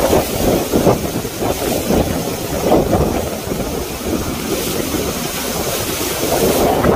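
Tornado-force wind blasting against a phone's microphone in surging gusts, with heavy wind-driven rain hissing throughout.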